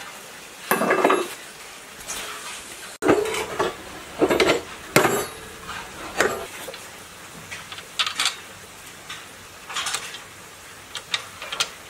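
Irregular metal clanks and clinks from assembling a small water-turbine generator: a wrench worked on the housing, the unit set onto its steel base frame, and bolts handled.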